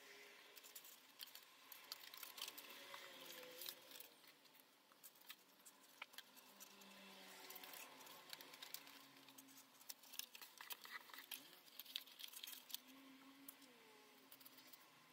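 Faint rustling, crinkling and light clicks of printer paper being handled, folded and pressed together while assembling a paper-craft model.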